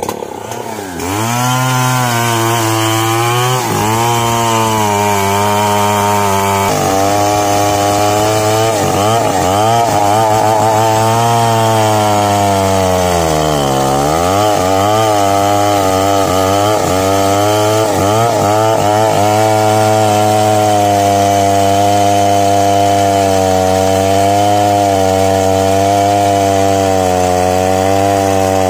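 Two-stroke chainsaw with a long bar cutting deep into the trunk of a large mahogany tree. The engine revs up about a second in and runs at high speed, its pitch wavering as the chain loads up in the wood, sagging sharply about halfway through before climbing back.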